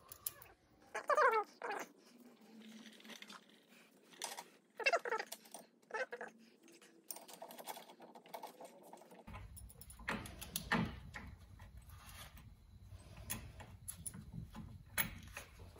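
Light clicks and clinks of metal parts being handled as a brake caliper mounting bracket with brass shims and its bolts is fitted to the front hub. A short whining pitched sound about a second in.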